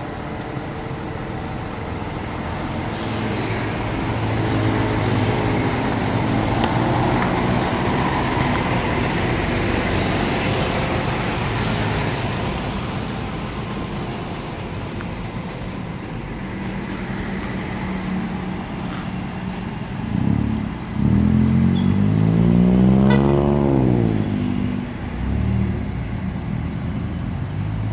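Heavy diesel tractor-trailers hauling railcars pass close by in road traffic, their engines running under load and swelling as they go past. About 20 seconds in, an engine revs up hard and drops back.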